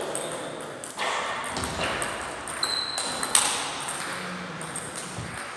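Table tennis rally: a plastic 40+ ball clicking sharply off the rackets and bouncing on the table, a string of irregular hits, some with a brief high ring, echoing in a large hall.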